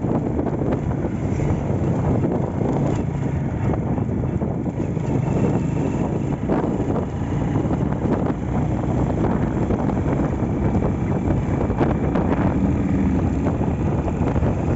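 Restored Honda Astrea Grand's small four-stroke single-cylinder engine running steadily while riding, mixed with heavy wind noise on the microphone.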